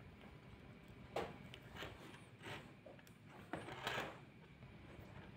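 About five faint clicks and knocks of things being handled on a workbench, the last two, about three and a half to four seconds in, a little louder.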